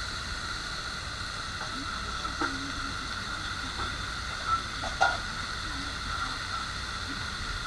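Steady hiss of a busy okonomiyaki counter, the griddle and the hood above it, with faint chatter behind and a few sharp clinks about two and a half, four and a half and five seconds in.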